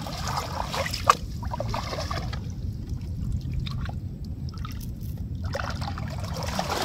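Hands splashing and sloshing in shallow muddy water in irregular bursts, with one sharp splash about a second in.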